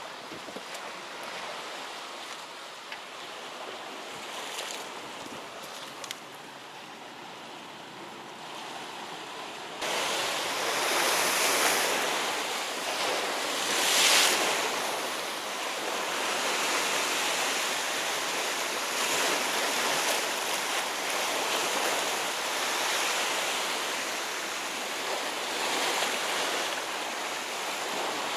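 Sea waves washing against a rocky shore, a steady rush of surf that steps up suddenly about ten seconds in and then swells and falls, with the biggest surge a few seconds after the step.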